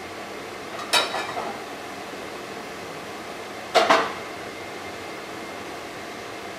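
Metal cookware clattering twice on a gas stove: a sharp clank with a short metallic ring about a second in, and another near four seconds, over a steady background hiss.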